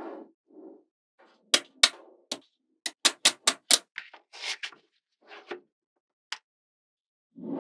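Small magnet balls clicking sharply together as they snap into place, single clicks and a quick run of about five in the middle, with softer handling and shuffling of the balls between.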